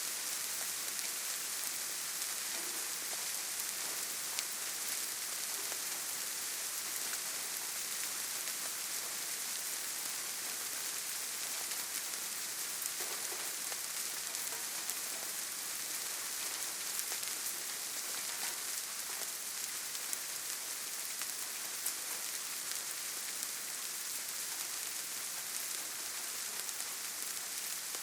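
Steady light rain falling, an even hiss with many small drops pattering.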